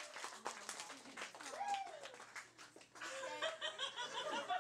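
A girl's surprised exclamations, turning into excited laughter about three seconds in, with other voices chuckling.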